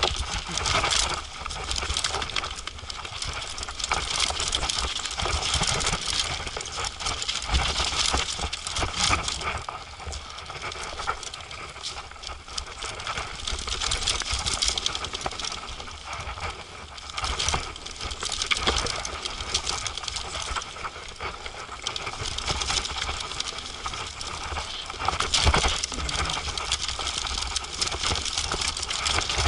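Downhill mountain bike clattering and rattling continuously as it rides over a rough dirt trail, with a steady low rumble underneath.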